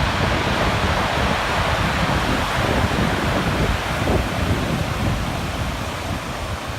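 Ocean surf washing steadily, with wind buffeting the microphone and adding a fluttering low rumble. It eases slightly near the end.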